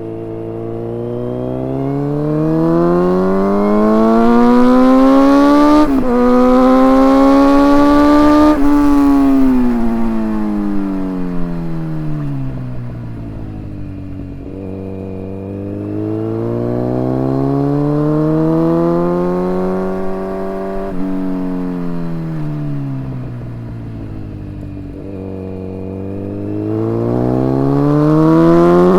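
2019 Kawasaki Z900 inline-four running through a full Akrapovic exhaust with the dB killers removed, recorded on the bike. The engine pulls up through the revs, with a quick upshift about six seconds in, then falls off as the bike slows. It swells and falls back twice more before rising again near the end.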